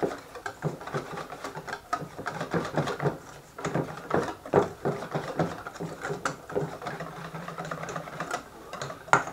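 A hand mixing thick beer batter in a stainless steel bowl: rapid, irregular wet squelching and slapping strokes, several a second, with the bowl knocking and scraping. It stops abruptly near the end.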